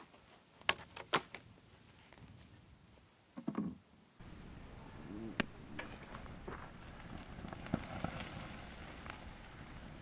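Two sharp cracks about a second in, then from about four seconds a wood fire crackling in a steel barrel stove, with scattered sharp pops over a steady hiss.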